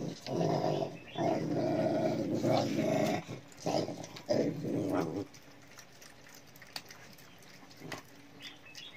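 Small dog growling over its food in several long spells for about five seconds, a sign of guarding the shared pan from the other dogs; then the growling stops, leaving faint clicks of dogs eating from the pans.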